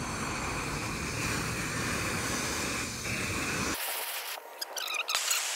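Handheld gas torch burning with a steady hiss as it burns the rubber bushing out of a leaf-spring eye. Near the end the sound cuts abruptly to a thinner, quieter hiss with a single click.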